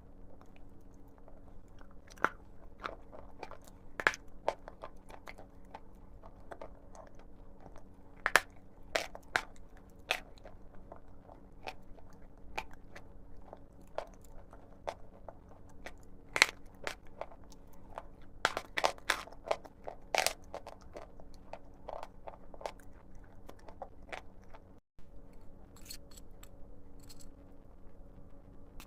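Someone biting and chewing pressed chalk (Big Love chalk), giving irregular sharp crunches, with bursts of louder bites now and then, over a faint steady hum.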